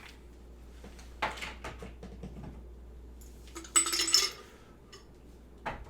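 Ice cubes clinking as they drop into a tiki mug: a few light clinks, then a louder clatter about four seconds in.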